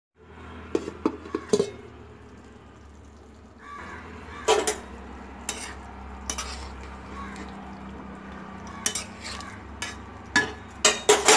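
A steel spoon stirring a thick gram-flour and potato curry in a metal pan, clinking against the pan now and then, with several clinks close together near the end. A low steady hum runs underneath.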